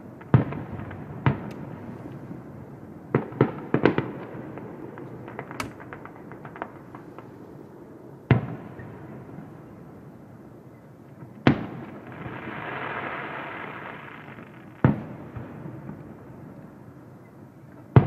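Aerial fireworks display: shells bursting with sharp bangs, each trailing off in a short echo. A quick cluster of bangs comes around four seconds in, then single bangs every few seconds, and a hiss swells and fades between two of them.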